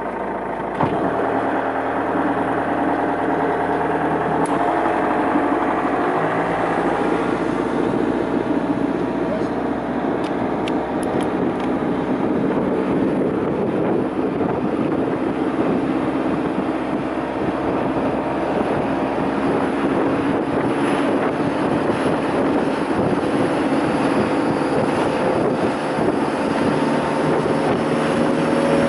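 Boat engine running steadily under way, over a constant rush of wind and water. Its pitch creeps up slightly near the end.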